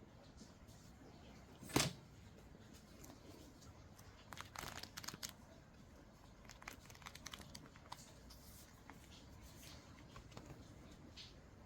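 Paper being handled: rustling and crinkling in short bursts, with one sharp, louder crackle or tap about two seconds in and a busier patch of rustles a couple of seconds later.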